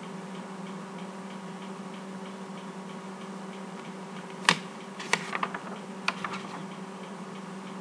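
A handful of short, sharp clicks over a steady hum: one louder click about halfway through, then a small cluster of lighter clicks over the next two seconds.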